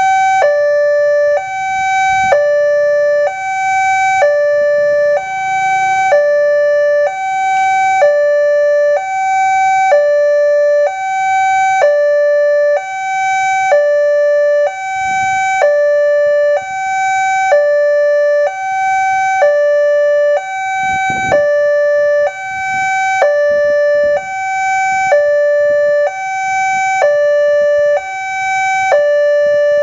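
Railway level crossing alarm sounding its electronic two-tone warning: a higher and a lower tone alternating steadily, about one pair a second. It signals that a train is approaching and the crossing is closed to road traffic.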